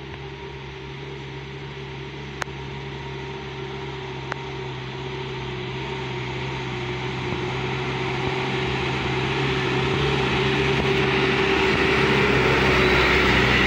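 Medium tour bus's diesel engine running steadily, growing louder as the bus approaches and pulls up close. Two brief clicks come in the first few seconds.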